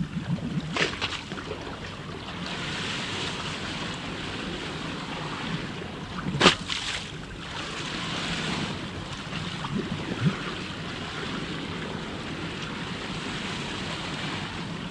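Waves washing in a steady rush that swells and eases, with sharp splashes about a second in, a loud one about halfway through and a smaller one near the ten-second mark.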